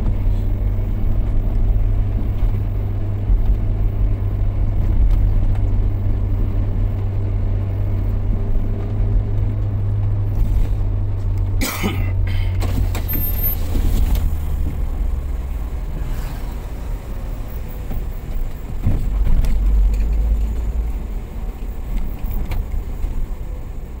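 Steady low rumble of a car's engine and tyres on the road, heard from inside the cabin. A brief sharp knock comes about 12 seconds in, and the rumble swells again a little after the middle.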